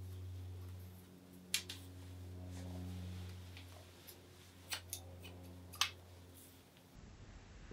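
Hair-cutting scissors snipping through hair a few times: two snips close together about one and a half seconds in, then three more between about four and a half and six seconds, over a steady low hum.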